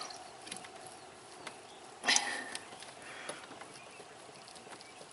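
Faint handling noises of a plastic power steering reservoir being worked up out of its metal bracket under the hood: small clicks and rubbing, with a brief scrape about two seconds in.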